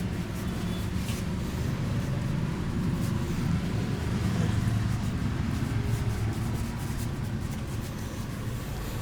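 Steady low background rumble, a little louder in the middle, with a couple of faint clicks about one and three seconds in.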